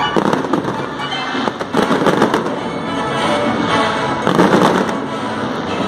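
Fireworks display: a dense run of crackling and bursting shells and effects, with music playing underneath.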